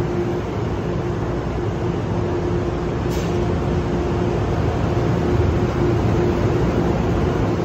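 NJ Transit Multilevel passenger coaches rolling past at low speed as a departing train, a steady rumble of wheels with a constant hum. A brief sharp click or squeak sounds about three seconds in, and the rumble grows a little louder after about five seconds.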